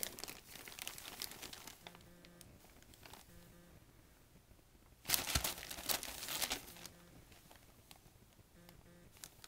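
Glossy Christmas wrapping paper crinkling and rustling as a kitten moves about underneath it, with a louder burst of crinkling about five seconds in that lasts under two seconds.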